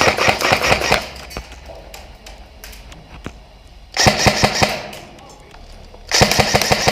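Airsoft electric guns firing full-auto, in three rapid bursts of clicking shots. The first stops about a second in, a short one comes at about four seconds, and another starts near the end.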